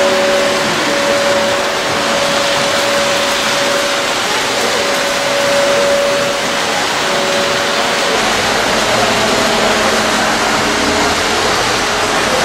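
Lionel O gauge model trains and motorized accessories running on a layout: a steady rushing noise with a faint motor whine that drops out and returns. Deeper rumble joins about eight seconds in.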